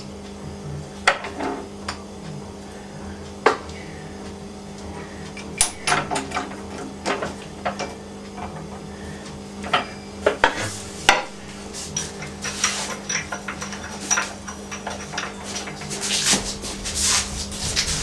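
Scattered metallic clicks, knocks and clattering as parts are handled and set down on a Flott pillar drill's table and head, growing denser near the end, with a steady low hum underneath.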